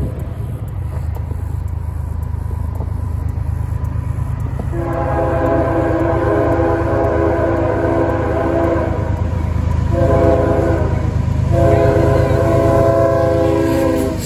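CSX diesel locomotive's air horn sounding the grade-crossing signal: a long blast about five seconds in, a short one, then another long one held until the locomotive reaches the crossing. Underneath is the rumble of the approaching train, growing louder.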